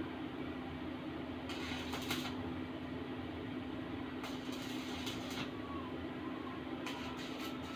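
Arc welding machine humming steadily, with three short bursts of crackling arc as tack welds are struck on a steel rack.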